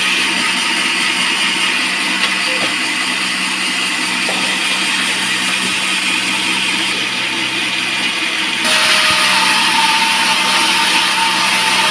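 Band sawmill running and cutting through a long teak log: a steady, loud whine and rasp of the blade in the wood over the motor's hum. About nine seconds in it turns abruptly louder and brighter, with a steadier high tone.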